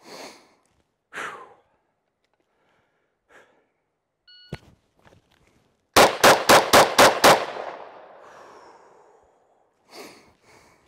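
An electronic shot-timer beep, then about 1.7 s later six rapid pistol shots from a 10mm Glock 40, about a quarter second apart, their echo dying away over the next second or two.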